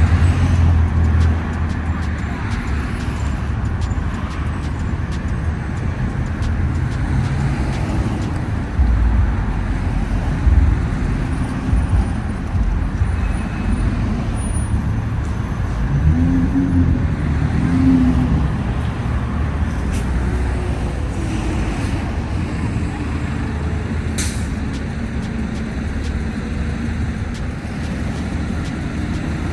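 City street traffic: motor vehicles running and passing, a steady low engine hum with an engine's pitch rising and falling now and then.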